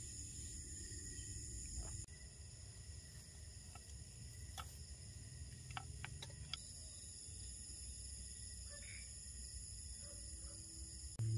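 Night insect chorus: steady high-pitched trilling, with a few light clicks about halfway through.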